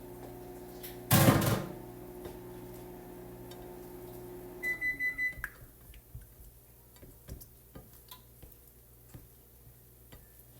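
Microwave oven running with a steady hum, then a quick series of high beeps as its timer ends and the hum stops. A loud, short clatter comes about a second in.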